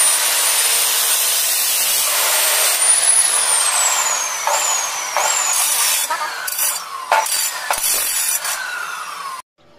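Bosch abrasive chop saw cutting through stainless steel square tube: a loud grinding rush over the motor's high whine. About three seconds in the cut ends and the motor speeds up, then winds down with a falling whine, picking up speed twice briefly on the way. Several sharp metal knocks near the end as the tube is shifted in the vise.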